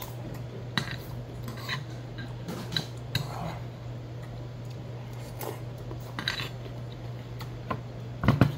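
Metal spoon scraping and clinking against a black earthenware pot while eating, a handful of separate clinks spread out, over a steady low hum. Near the end a louder knock as the heavy pot is handled on its underplate.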